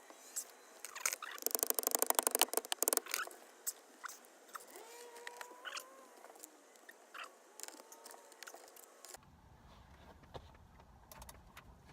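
Socket ratchet clicking rapidly, about ten clicks a second for a couple of seconds, while the steering wheel's centre nut is being worked, followed by scattered knocks and clatter of tools.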